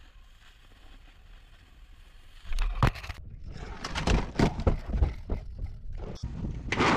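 Faint hiss at first, then wind rumbling on the microphone and a series of knocks and thumps on a boat deck as a man scrambles about. Near the end a rushing splash as he falls overboard into the water.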